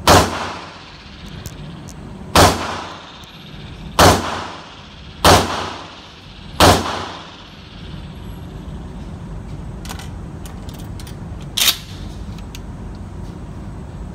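Five 12-gauge shotgun blasts from a Remington 870 pump-action firing 3-inch magnum buckshot, one every one to two seconds, each echoing off the walls of an indoor range. A few light clicks and one sharper clink follow near the end.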